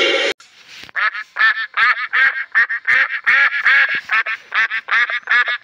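A loud animal call cuts off just after the start. About a second in, a flock of white domestic geese starts honking in short, repeated calls, about four a second, overlapping one another.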